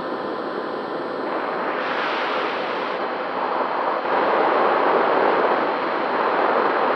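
Wind rushing over the onboard microphone of a Skywalker FPV model plane in flight: a steady hiss-like noise that grows louder about four seconds in.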